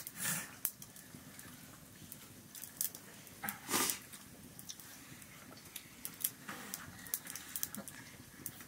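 Quiet eating sounds: fingers and a spoon clicking and scraping on metal plates and bowls as rice is eaten by hand, with a couple of short louder noises, one just after the start and one about four seconds in.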